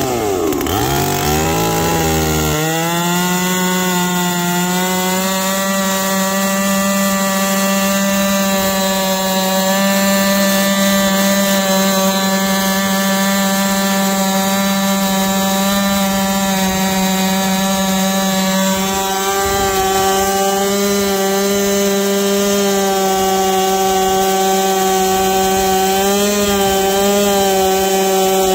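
Holzfforma G660 (Stihl MS660 clone) two-stroke chainsaw on a chainsaw mill, ripsawing an Eastern red cedar log lengthwise. The engine revs up over the first couple of seconds, then holds a steady full-throttle pitch under load through the cut, wavering slightly near the end.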